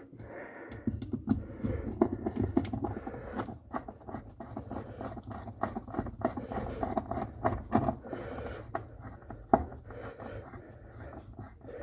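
Irregular clicks, taps and scraping as parts are handled and fitted on a washing machine during reassembly, over a low steady hum that starts about a second in.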